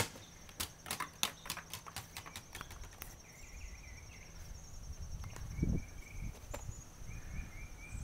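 A shaken plastic soda bottle smacks onto an asphalt driveway, then bounces and clatters in a quick string of knocks for about three seconds before coming to rest without bursting.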